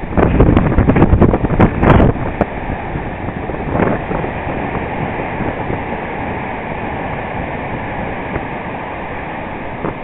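Storm waves breaking against a sea wall, a steady roar of surf, with heavy wind buffeting the microphone through the first two seconds or so.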